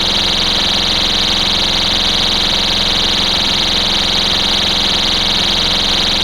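STI Stopper pull-station cover's built-in alarm horn sounding a steady, loud, high-pitched electronic tone, the local alarm it gives when the cover is lifted.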